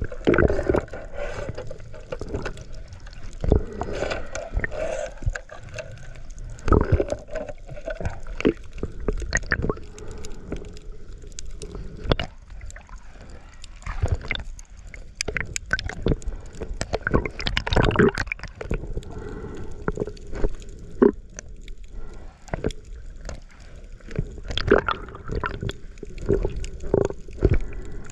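Underwater sound during a dive: water gurgling and sloshing, broken by many irregular clicks and knocks.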